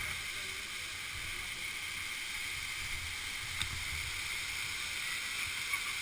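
Steady rushing of a waterfall crashing onto rocks, with a low rumble underneath.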